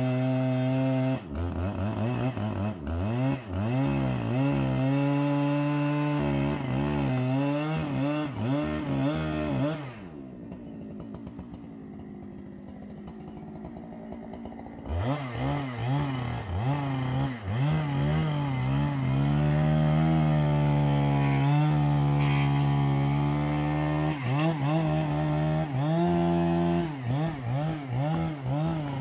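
Husqvarna two-stroke chainsaw running. Its engine is revved up and down over and over, drops to a quiet idle for about five seconds midway, then is held at high speed with brief dips in pitch.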